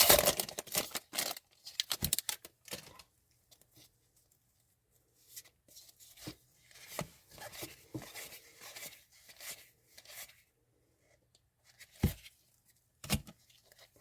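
A 2023-24 O-Pee-Chee hockey card pack being torn open, its wrapper tearing and crinkling loudly for about the first second. Then come softer rustles and small clicks as the cards are handled, and two knocks near the end.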